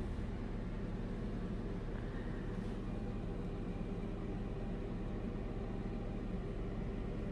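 A steady low mechanical hum with a faint even hiss underneath, unchanging throughout.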